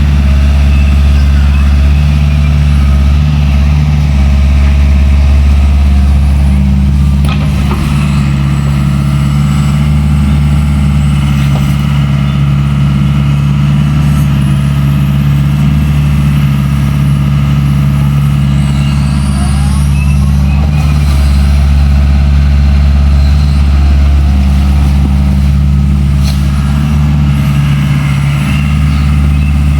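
Excavator's diesel engine running steadily at a loud, even idle, with a deep constant hum.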